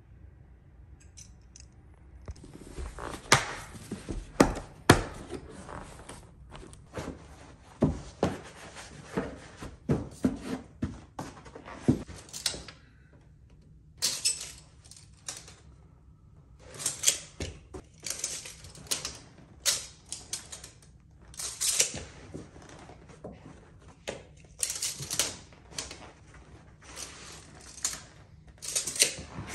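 Carpet installation tool work: an irregular run of sharp clicks and knocks, with several loud thunks about three to five seconds in and short scraping noises between.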